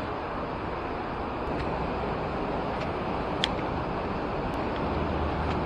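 Steady rush of river water, with a few sharp clicks; the clearest is about three and a half seconds in.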